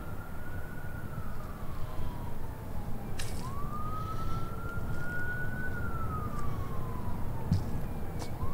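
Emergency vehicle siren on a wail, its pitch slowly rising and falling in cycles of about five seconds, over a steady low rumble.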